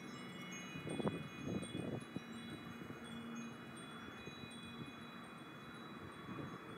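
Wind chimes ringing, many overlapping high tones sounding and fading. There are soft handling rustles about a second in and again near the end.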